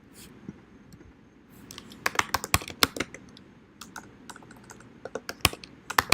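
Computer keyboard typing: a run of irregular, sharp key clicks starting about two seconds in, after a few faint ticks.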